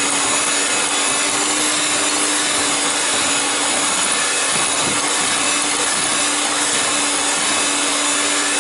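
Electric hand mixer running at a steady speed with a constant motor hum, its beaters whisking sponge-cake batter in a glass bowl.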